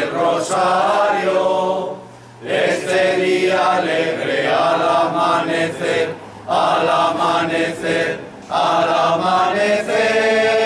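A group of voices singing a slow chant together in long held phrases, with short breaks between phrases about two, six and eight seconds in.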